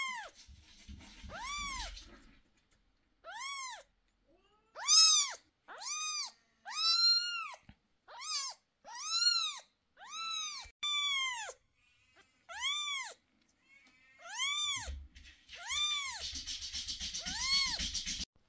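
Eleven-day-old kitten meowing over and over while held in hands: about fourteen high, thin meows, each rising and then falling in pitch, roughly one a second. A rustling noise sits under the last few calls.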